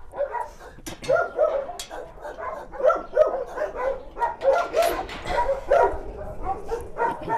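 Dogs in shelter kennels barking repeatedly, many short barks overlapping with no pause.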